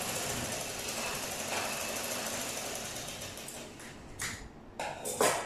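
Black domestic sewing machine driven by a small electric motor, running steadily as it stitches, then slowing and stopping about three and a half seconds in. After it stops come three sharp snips of scissors cutting the thread, the last one the loudest.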